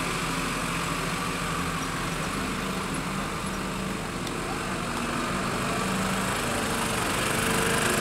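Mercedes Unimog U400 fire truck's diesel engine running at low speed as the truck drives slowly past. It grows louder near the end as the truck comes close.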